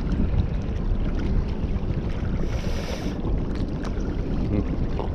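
Wind buffeting the microphone: a steady, uneven low rumble, with a brief hiss a little past halfway.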